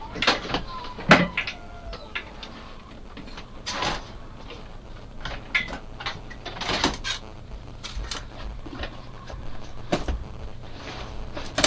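Irregular knocks, bumps and rustles of someone moving about and handling things in a room, with the sharpest bang about a second in. A low steady hum runs underneath.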